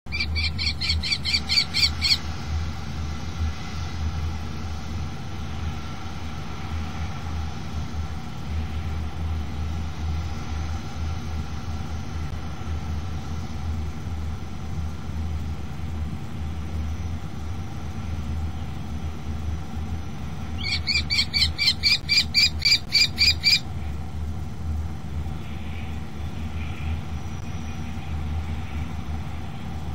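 Common kestrel calling in two bouts of rapid, shrill repeated notes, one in the first two seconds and another about twenty seconds in, lasting about three seconds, over a steady low hum.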